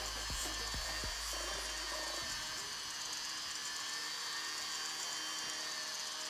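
Rotary tool spinning a small steel wire wheel against a blackened metal ring, a steady high-pitched whine as it brushes the surface. Background music with a steady beat runs under it and stops about two seconds in.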